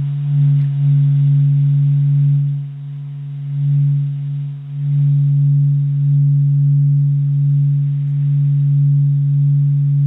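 Sonified acoustic oscillations of the Sun: the star's natural vibrations, sped up several octaves into the audible range. They sound as a steady low hum of several held tones that swells and dips a little in loudness.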